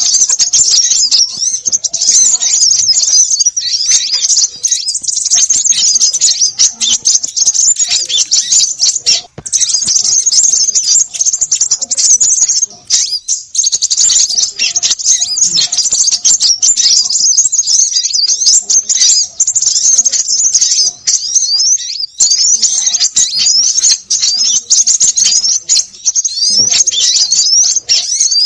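A dense, noisy chorus of small birds chattering and chirping nonstop, high and shrill, with many quick downward-sliding notes. It is a bird-trapping lure call. It breaks off briefly about nine and thirteen seconds in.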